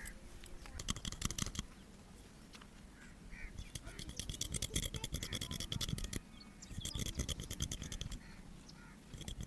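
Old ZAZA hair-cutting machine snipping through hair in quick runs of rapid clicks: a short run, a longer one of about two and a half seconds, then another short one.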